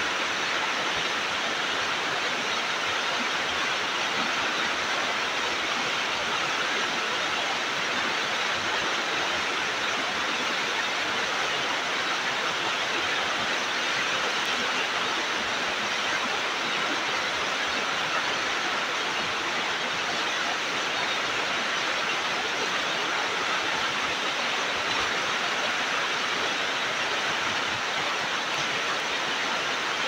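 Waterfall rushing steadily: an even, unbroken roar of falling water with no pauses or separate splashes.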